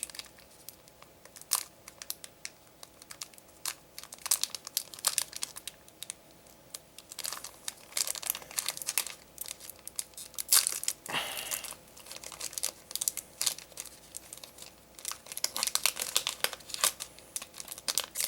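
Foil booster-pack wrapper crinkling and tearing as it is ripped open and the cards handled, in many short, sharp crackles.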